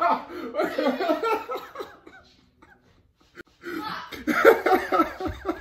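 Laughter in two spells, with about a second and a half of near silence between them.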